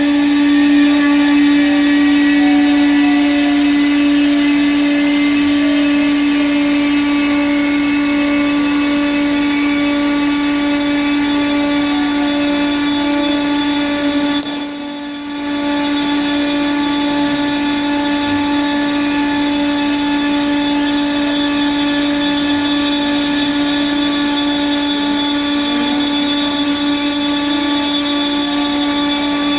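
CNC router spindle running with a steady high whine as its bit cuts grooves into MDF, with fainter whines gliding up and down in pitch as the head moves. The sound dips briefly for about a second halfway through.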